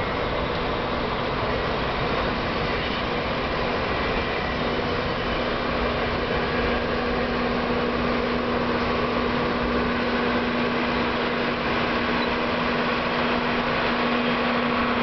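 Canadian Pacific Holiday Train's box cars rolling past on the track: a steady rumble of the moving train, with a steady hum joining about four seconds in.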